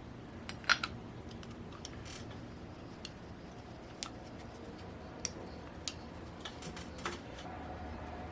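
Scattered light metallic clicks and taps of small model-engine parts and tools being handled on a bench, the sharpest about a second in.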